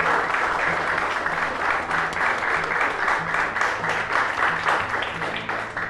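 A group of people clapping in steady applause, over soft background music.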